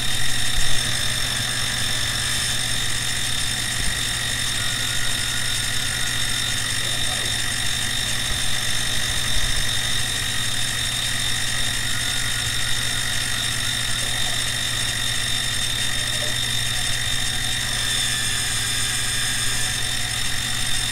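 CNC-converted benchtop milling machine (BF-20 type) with an end mill cutting a full-width slot through a metal block, at a reduced 50-thousandths depth of cut. A steady machining whine with several high, even tones and a low hum, unchanged throughout.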